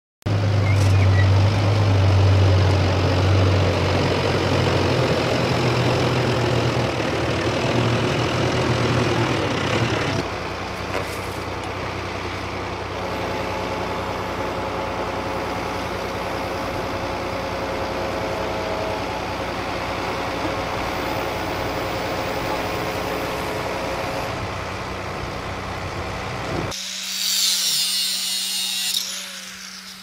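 A crane truck's diesel engine running steadily, with a cut about ten seconds in to a quieter stretch of the same kind of running. Near the end a short, hissy, higher-pitched mechanical noise.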